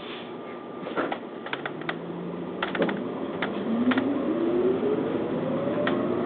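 Inside a city bus: a run of sharp clicks and knocks, then the bus's engine note rising steadily in pitch as it pulls away and gathers speed.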